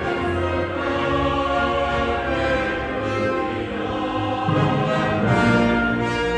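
Choir singing with instrumental accompaniment, sustained chords changing every second or so.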